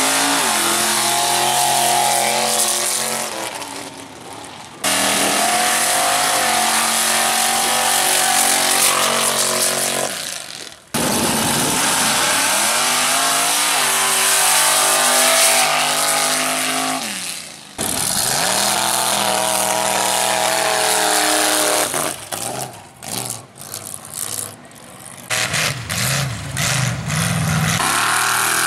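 Big-block V8 engines of lifted mega mud trucks at full throttle down a dirt drag strip, in several short runs one after another. Each run starts with the engine note climbing and then holding at high revs; a stretch near the end is choppy, with the engine cutting in and out.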